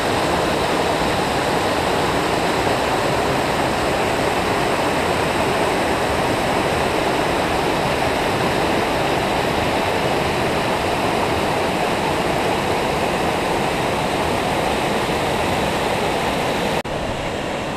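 Waterfall and creek water rushing in a steady, loud roar. About a second before the end it drops suddenly to a slightly quieter, duller rush.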